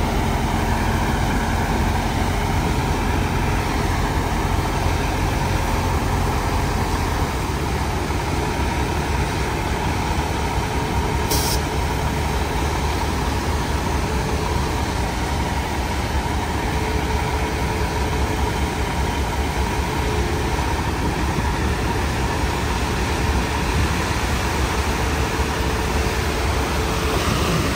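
A Kenworth dump truck's diesel engine running steadily while the hydraulic hoist raises the tipper body to dump its load of gravel.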